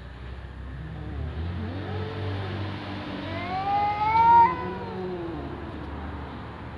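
Domestic cat meowing: a long, drawn-out call that wavers up and down, then rises in pitch and is loudest a little past four seconds in.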